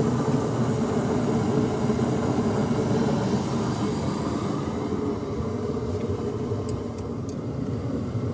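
Portable forced-air (torpedo) heater running with a steady jet-like rumble. A few light clicks come near the end.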